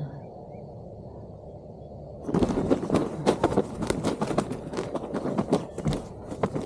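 Footsteps crunching and rustling through dry leaves and brush, starting about two seconds in and going on in an irregular run of crackles.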